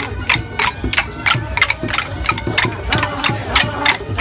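Wooden sticks clacking together in a steady rhythm, about three sharp strikes a second, as dancers beat their tipri sticks, with voices of the crowd behind.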